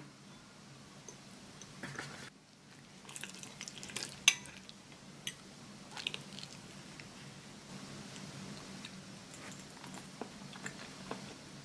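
Metal fork clinking and scraping on a ceramic plate while cutting into fried eggs and bacon, with a sharp clink about four seconds in and a few lighter ticks later, over a faint low hum.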